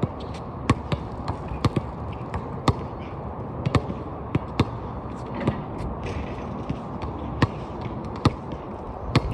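Basketballs being dribbled on a hard court: sharp, irregular thumps about once or twice a second, over a steady low background rumble.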